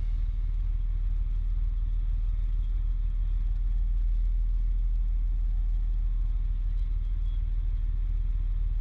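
Fire apparatus's diesel engine running steadily, a constant low rumble.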